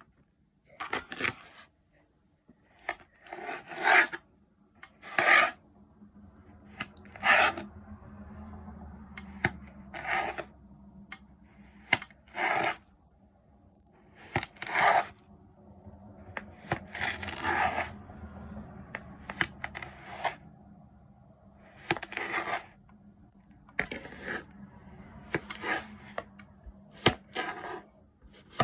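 Kinetic sand being cut and pressed, a series of short crunchy, scraping strokes every second or two. A faint low hum runs under the middle stretch.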